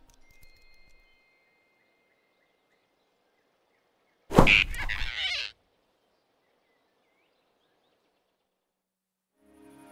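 Animated-film sound effect of a sudden grab: one sharp thump with a short rushing whoosh lasting about a second, set in dead silence. Soft music begins right at the end.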